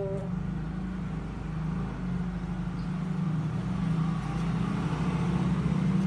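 A motor engine running steadily with a low, even hum that slowly grows a little louder.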